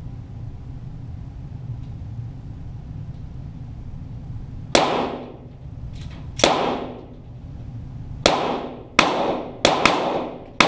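Shots from .22 Walther GSP target pistols, heard from near the target: six sharp cracks at uneven spacing starting about four and a half seconds in, each ringing out briefly. A low steady hum runs underneath before the first shot.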